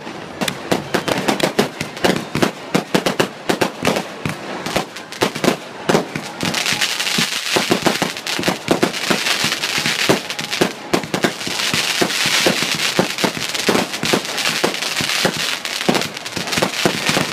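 Fireworks and firecrackers going off in a fast, irregular string of sharp bangs and crackles. About six seconds in, the sound thickens into a dense crackling hiss, still studded with bangs.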